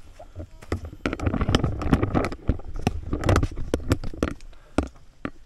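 Irregular crunching and scraping footsteps on a hillside hiking trail, busiest in the middle, over a low rumble.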